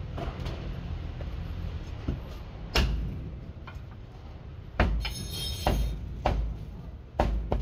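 Heavy meat cleaver chopping goat meat on a wooden chopping block: five sharp thuds, one near three seconds in and four more in the second half, one of them followed by a brief metallic ring.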